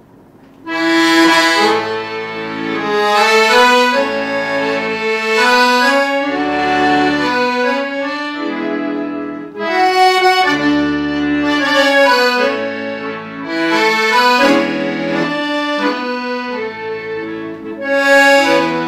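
Accordion music that starts about half a second in: a melody over held chords and bass notes, moving in phrases of a couple of seconds.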